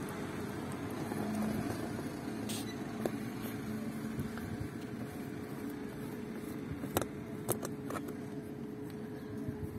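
A few short, sharp plastic clicks and taps as the valve of an inflatable stand-up paddle board and its plastic valve wrench are handled and fitted, two of them close together about seven seconds in. Under them is a steady low background rumble with a faint hum.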